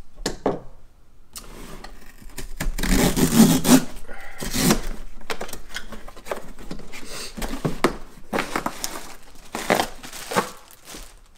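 Cardboard box being cut open and torn apart by hand, with irregular bursts of tearing, scraping and rustling packaging, loudest about three seconds in.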